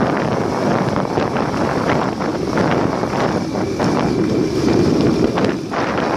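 Wind rushing and buffeting over the microphone of a camera moving along a road at speed, with vehicle running noise underneath.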